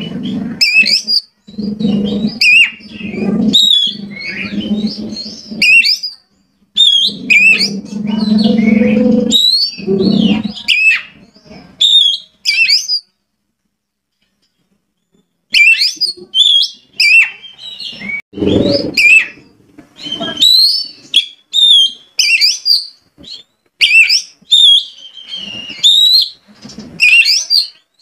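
Oriental magpie-robin singing: loud, varied whistled phrases with quick up-and-down glides. Through the first ten seconds or so a lower rough sound runs beneath the song. About halfway through the song breaks off for a couple of seconds, then resumes.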